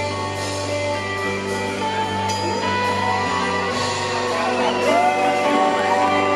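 A rock band playing live, with electric guitar, bass guitar and drums.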